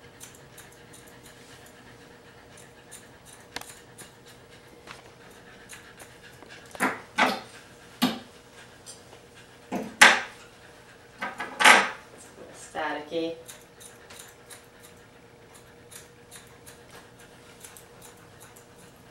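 Thinning shears snipping through a Cocker Spaniel's coat, an irregular run of soft clicks as the coat is tipped. Around the middle come a few louder breathy bursts and a short sound falling in pitch.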